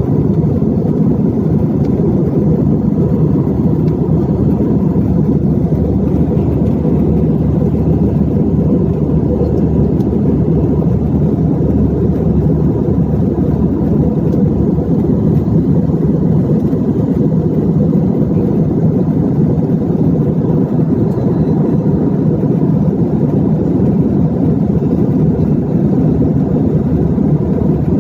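Steady low drone of an airliner cabin in flight: engine and airflow noise with no change.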